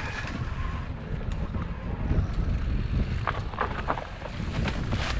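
Mountain bike rolling down a dirt singletrack: a steady low rumble of wind on the microphone and tyres on the trail, with a few sharp rattles and clicks from the bike in the second half.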